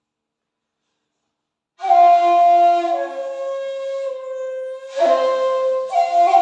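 A 2.8 jinashi shakuhachi playing a slow honkyoku phrase. After silence, a breathy note comes in about two seconds in and steps down to a lower held tone. Two more breathy attacks follow near the end, the last one higher.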